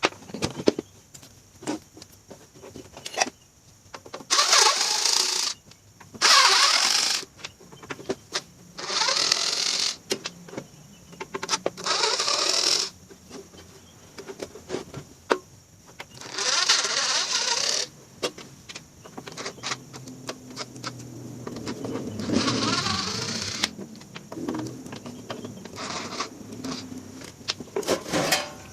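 Cordless electric screwdriver whirring in about seven bursts of a second or so, backing out the screws of a welding machine's casing, with small clicks and handling of parts between the bursts.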